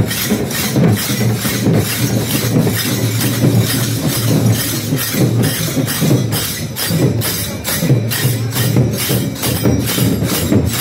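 Dammam drums beaten in procession in a fast, even beat, each stroke sharp and crisp over a heavy low drum body.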